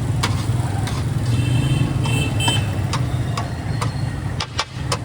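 Busy roadside ambience: a steady low engine hum of traffic, with repeated sharp clicks and taps scattered through, more of them near the end.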